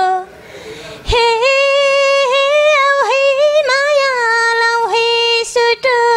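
A young woman singing unaccompanied in an eastern Nepali (Purbeli) folk tune. She takes a short breath, then from about a second in holds a long, wavering 'he' with small turns in the melody.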